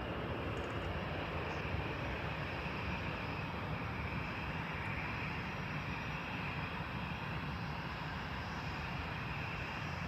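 Steady distant jet aircraft noise, a continuous rumble with a faint higher whine and no distinct events.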